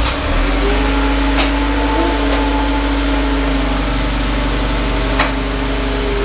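Mitsubishi Lancer Evolution X's turbocharged four-cylinder engine idling steadily just after being started, with a single sharp click about five seconds in.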